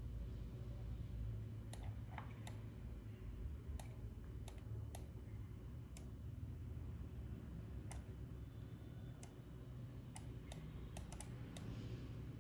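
Sparse, irregular clicking at a computer, about fifteen sharp clicks with a quick run of them near the end, over a low steady hum.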